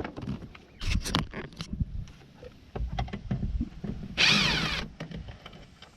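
Clicks and knocks of a tool against plastic door trim, then, about four seconds in, a half-second whir of a power driver with a Phillips bit backing out a screw behind the door-handle trim.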